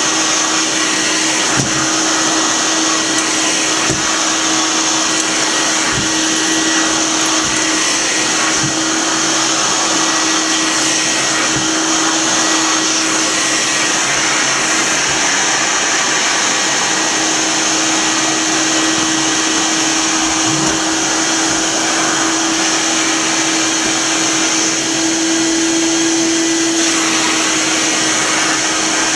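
Royal Deluxe model 931 metal-tank canister vacuum cleaner running steadily: a constant motor hum over the rush of air, with a few soft knocks in the first several seconds.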